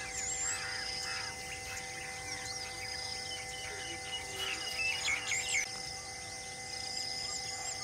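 Forest ambience: several birds chirping and whistling in short repeated calls over a steady high insect drone.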